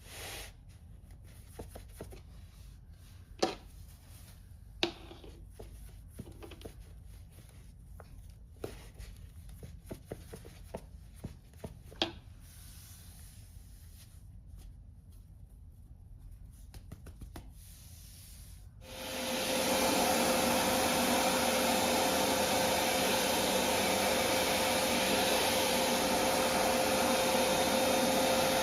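Scattered light clicks and knocks of handling. Then, about two-thirds of the way in, a vacuum cleaner switches on and runs steadily: a loud, even rushing noise with a steady tone running through it.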